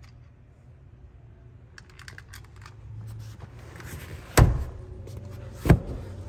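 Handling noise in a car's rear cabin: a run of small clicks, then two loud thumps about a second and a half apart, over a steady low hum.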